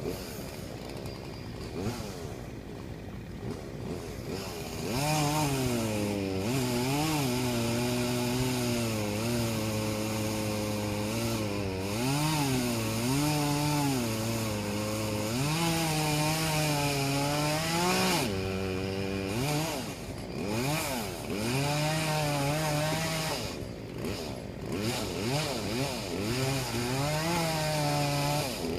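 Two-stroke chainsaw cutting ash wood, its engine pitch sagging under load in the cut and rising again between strokes. It gets louder about five seconds in.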